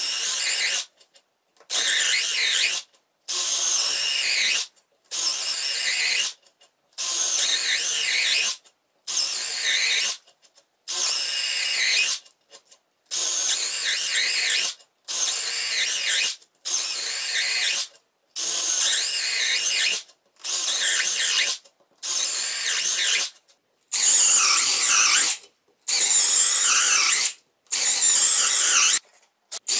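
Parkside Performance 12V brushless cordless drill boring a run of holes in wood, one after another. It runs in about seventeen bursts of a second or so each, with brief pauses between.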